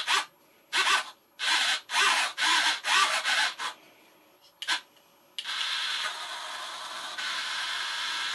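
Small RC servo driving the elevator pushrods in a run of short whirring bursts, then whirring steadily for about four seconds near the end, while it is tested and centred.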